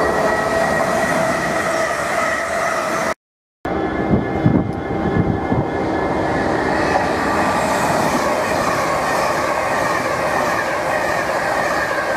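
An electric multiple unit running into the station with a steady whine, cut off about three seconds in. Then a few low thumps, and a Class 390 Pendolino electric train running through at speed, its wheel and air noise building into a loud, dense rush as it passes.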